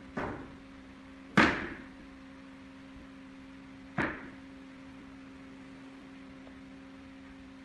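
Three sharp knocks on wood, the second the loudest, each fading within about half a second, as slats of a wooden louvred door are pressed into the frame; a steady low hum underneath.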